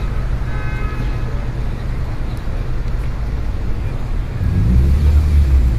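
Street traffic noise: a steady low rumble of road vehicles, growing louder near the end.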